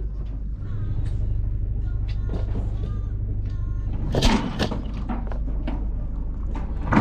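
Steady low rumble of a sailing yacht under way, with a few loud knocks about four seconds in and again at the very end.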